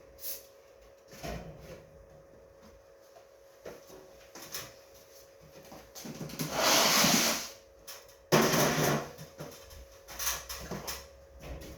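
Aerosol can of lubricant spraying a garage door roller: one hissing burst of about a second and a half past the middle, then a shorter burst about two seconds later, among small knocks and clatter of handling the door hardware.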